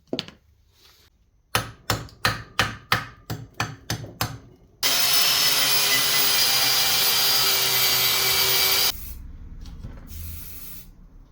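A quick run of about ten sharp hammer blows on metal, then a power tool running steadily for about four seconds and stopping abruptly.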